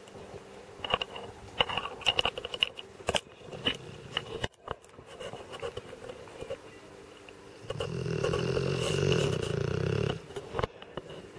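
Dogue de Bordeaux snoring: one long, loud snore of about two and a half seconds comes about two-thirds of the way in. It is preceded by scattered light clicks.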